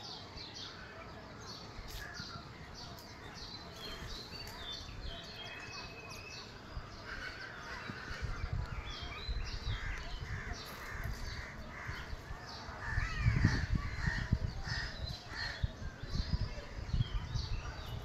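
Birds chirping and calling in many short, quick notes. From about eight seconds in, irregular low rumbling gusts come and go, loudest a little past the middle.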